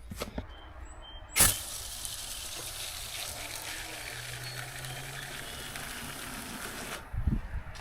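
An aerosol spray can hissing steadily into a baler tube where bees are nesting. The spray starts with a sharp click about a second and a half in and cuts off suddenly near the end, followed by a few low thumps.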